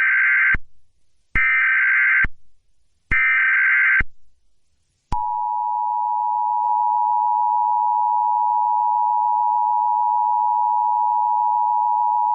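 Emergency Alert System SAME header: three short bursts of screeching digital data, each about a second long, coding a child abduction (Amber) alert. About five seconds in, the steady two-tone EAS attention signal starts and holds, announcing the emergency broadcast.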